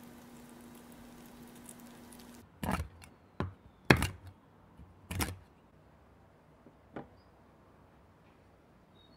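A chef's knife chopping almonds on a wooden cutting board: a handful of sharp knocks starting about two and a half seconds in, with one lighter knock a little later. Before the chopping there is a faint steady hum.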